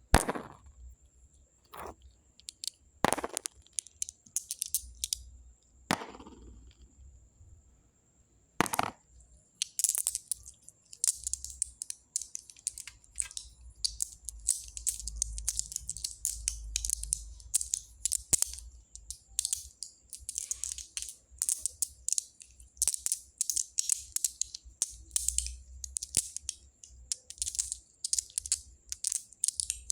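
Small pebbles clicking against each other. A few separate sharp knocks come in the first nine seconds, then dense, continuous rattling and crunching as the stones are stirred and rubbed together.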